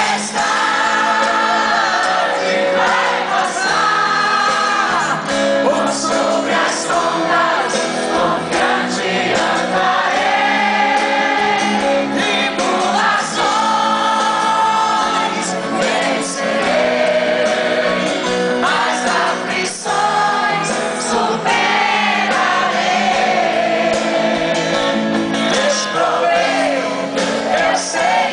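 Gospel song sung by voices over sustained instrumental accompaniment.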